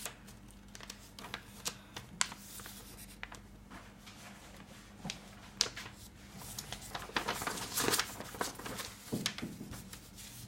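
A sheet of printer paper being folded and creased by hand, with irregular short rustles and crinkles that grow busier in the second half.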